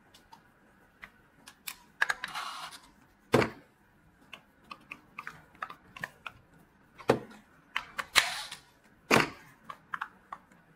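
Small parts of a replacement window handle clicking and knocking as they are fitted together by hand. Irregular light clicks run throughout, with a few sharper knocks and two brief scraping rustles, one about two seconds in and one past the middle.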